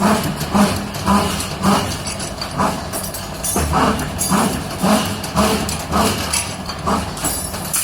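CNC rebar stirrup bending machine running, with a rhythmic mechanical clatter that repeats about twice a second.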